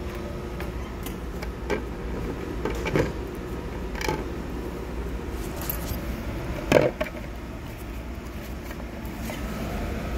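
A few scattered knocks and clicks over a steady low hum, the loudest knock about two-thirds of the way through.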